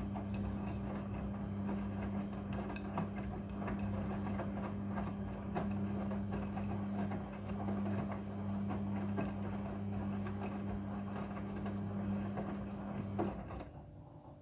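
Front-loading washing machine tumbling its drum in the wash cycle: a steady motor hum with the clatter and swish of the wet load turning, and the drum stops about a second before the end.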